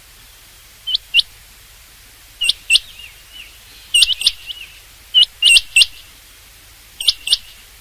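Rain quail calling: short, sharp, steeply rising notes given in quick pairs, five phrases about a second and a half apart, one of them with three notes.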